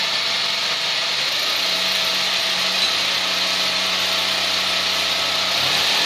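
Electric drill running steadily as it bores into the tiled bathroom wall.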